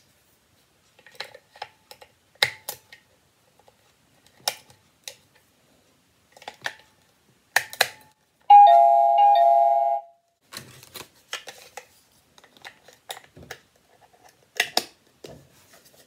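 Light plastic clicks and knocks as AA batteries are fitted into the Byron DBY-22311 portable doorbell's speaker unit and its case is handled. About eight and a half seconds in, the doorbell speaker sounds a short electronic chime of about a second and a half, stepping down in pitch, the loudest sound here.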